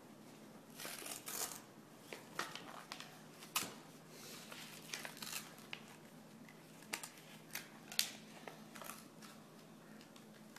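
Paper envelope being torn open and rustled by hand: a run of irregular crinkles and rips, with sharp snaps about three and a half and eight seconds in.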